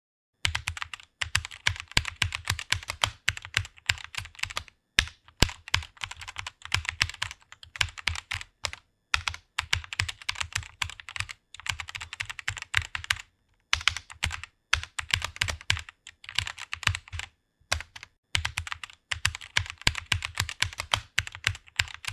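Fast typing on a computer keyboard: rapid key clicks in quick runs, broken by a few short pauses.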